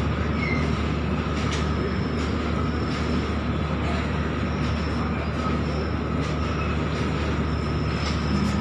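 Freight train wagons rolling past at speed: a steady rumble of wheels on rails, with faint clicks about once a second as wheels pass over rail joints.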